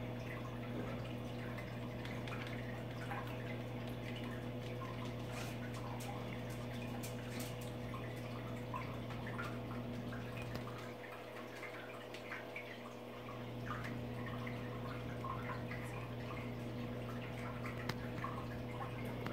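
Aquarium filter running: a steady low hum with water trickling and dripping over it. The hum drops away for about two seconds near the middle.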